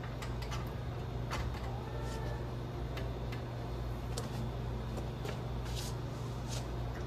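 Scattered light clicks and knocks from hands working at the frame under a raised 1932 Ford body, over a steady low hum.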